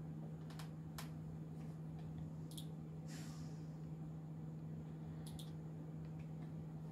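Quiet room tone with a steady low hum, a few faint light clicks, and a short breathy sniff or exhale about three seconds in.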